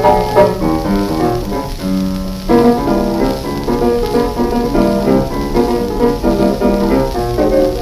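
Piano music playing a busy line of short notes, pausing on one held chord about two seconds in.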